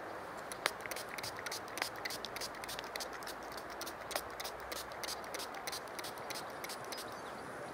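Small hand spray bottle misting water onto watercolour paper: a rapid run of short spritzes and trigger clicks, over a steady background hiss.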